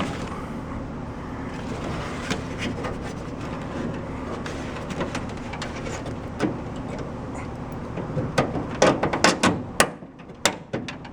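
Metal hardware being worked inside a car door: scattered clicks and knocks over a steady background noise, with a quick run of sharp metallic clicks near the end as the handle is fastened in with small nuts and bolts.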